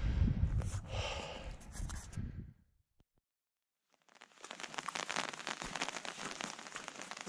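Wind buffeting the microphone, a low rumble with a breathy gust about a second in, fading out about two and a half seconds in. After a moment of silence, a dense crackling patter starts and runs on evenly.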